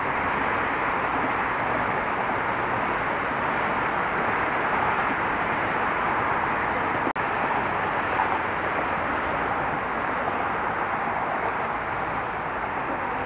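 Steady road traffic noise from a stream of cars crossing a bridge, an even rush of tyres and engines, with a momentary dropout to silence about seven seconds in.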